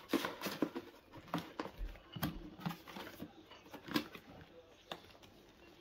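Small cardboard camera box being handled: a string of light scrapes, clicks and knocks of card against fingers and the tabletop.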